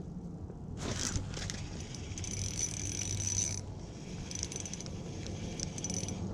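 Small fishing reel being cranked, in two spells of high mechanical whirring with a short rattle before them, over a steady low hum.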